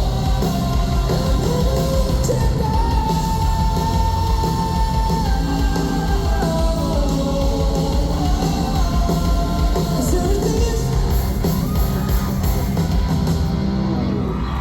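Live rock band playing a song with sung vocals over loud, dense drums, bass and guitars.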